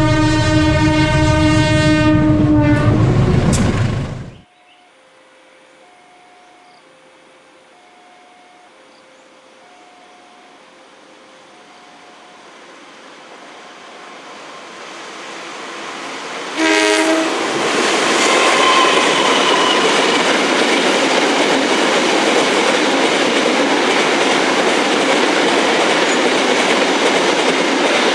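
A diesel locomotive's horn blast that ends about four seconds in, then a level-crossing warning bell ringing two alternating tones as a train approaches and grows louder. Another short horn sounds about seventeen seconds in, followed by the train passing close with loud wheel clatter on the rails.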